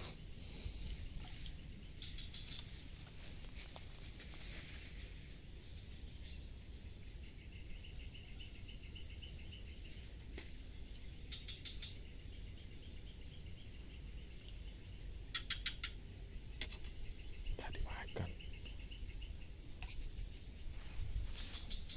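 Steady high-pitched insect drone, with short pulsed chirping trills now and then, over a low rumble.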